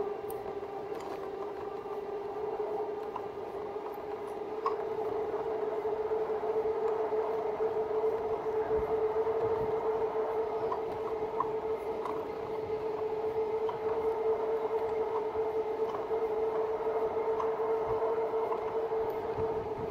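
A 2018 RadMini fat-tyre e-bike's geared hub motor whining at one steady pitch while it pulls the bike along at cruising speed. It grows a little louder about five seconds in.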